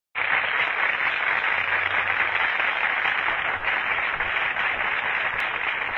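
A large audience applauding: dense, steady clapping that starts abruptly right at the beginning.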